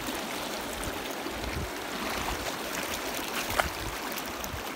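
Shallow, rocky stream running steadily over stones.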